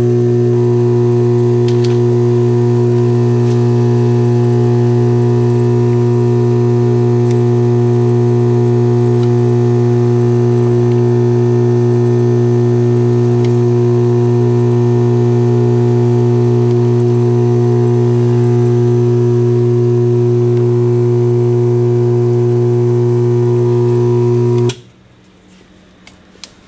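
Dental lab vibrator running with a loud, steady electric buzz, shaking mounting stone to work the air bubbles out. It switches off suddenly about two seconds before the end.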